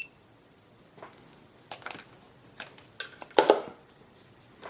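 A digital multimeter gives a short electronic beep, then a series of plastic clicks and knocks as it is handled while being set up for a non-contact voltage test. The loudest knock comes about three and a half seconds in.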